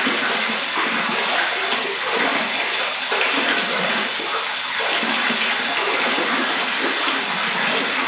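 Steady stream of water pouring from a stone spout into a full stone bathtub, splashing where it lands on a child's feet and on the bathwater.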